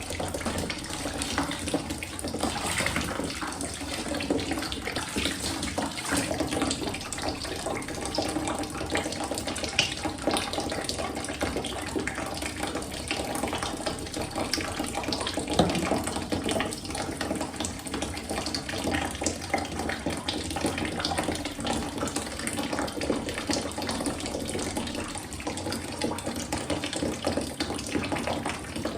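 Water running steadily from a tap, with a constant splashing rush.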